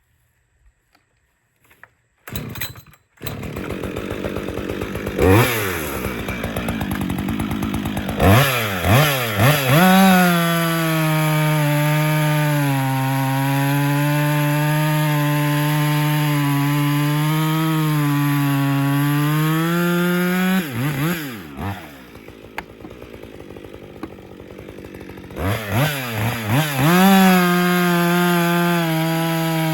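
Husqvarna 562 XP 60cc two-stroke chainsaw coming in about three seconds in, revving up and cutting through a log at full throttle, its pitch sagging a little under load. About two-thirds of the way through it drops back to a low idle for a few seconds, then revs up and goes back into the cut.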